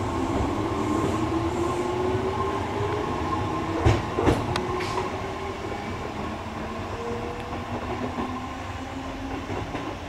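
Kintetsu electric train pulling away and receding down the line: a steady rumble with the motor whine slowly rising in pitch as it picks up speed. The wheels knock sharply twice about four seconds in, and the sound gradually fades as the train draws away.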